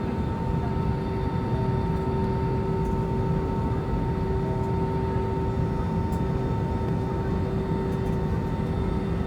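Airliner cabin noise inside an Airbus A320 after landing: a steady low rumble with a constant hum and whine from its IAE V2500 engines running at idle while the aircraft taxis.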